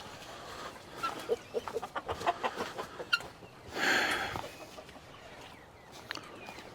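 Chickens clucking, a quick run of short clucks for about two seconds, then a louder harsh sound about four seconds in.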